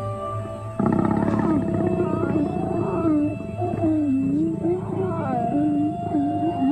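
African lions growling while mating: a low, wavering growl that rises and falls in pitch, starting abruptly about a second in. A soft held music bed plays underneath.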